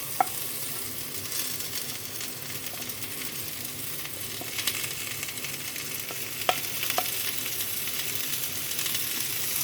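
Chopped tomatoes and browned onions frying in sunflower oil in a hot pan, giving a steady sizzle while a spoon stirs them, with a few sharp knocks of the spoon against the pan.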